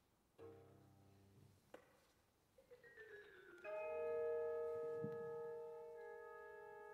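Contemporary chamber-ensemble music: a soft struck chord, then a quick descending run of mallet-percussion notes leading into a louder held chord that rings on with a slow waver.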